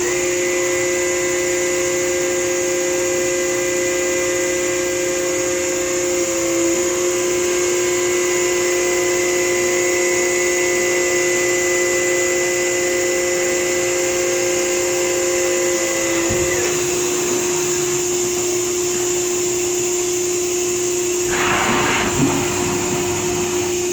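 Modig Model 7200 Profileline 5-axis CNC machining center running under power: several steady whining tones over a constant hiss. The higher tones stop about two-thirds of the way through while a lower hum continues, and a short hiss comes near the end.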